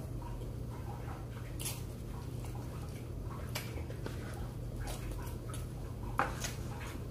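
Eating sounds: a metal spoon scraping and clicking against a paper cup, with short chewing and mouth sounds, over a steady low hum. The sharpest click comes about six seconds in.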